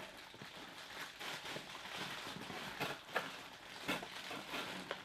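Bubble wrap being handled and pulled open: faint, irregular rustling and crinkling of plastic, with a few soft ticks.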